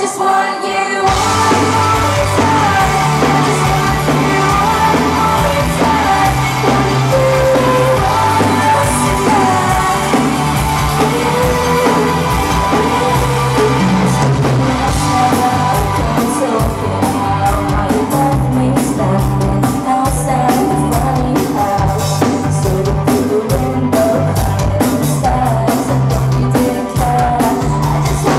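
A live indie-pop band played through a club PA: a woman singing over electric guitars, bass and drums. Loud, as heard from within the audience. The low end drops out for a moment at the start, and from about halfway a steady drum beat comes through strongly.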